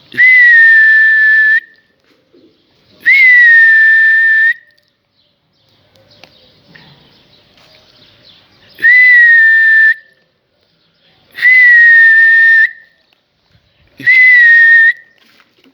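Five loud, long whistle blasts from a pigeon keeper sending his flock up to fly. Each blast lasts about a second, starts with a brief upward flick, then holds one steady high pitch, with gaps of one to several seconds between them.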